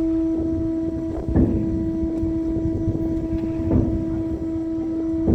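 Steady, unbroken mechanical drone of a cargo ship's machinery, one held tone over a low rumble, with a dull thump about every two and a half seconds.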